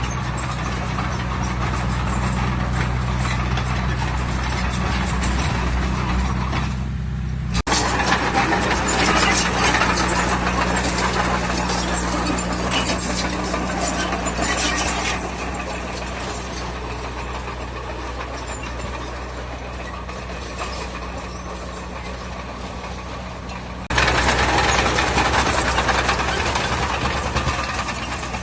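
Heavy diesel engine of earthmoving machinery running steadily, with a rattling, clattery noise over it. The sound jumps abruptly twice, getting louder and busier each time, and eases off for a stretch in the middle.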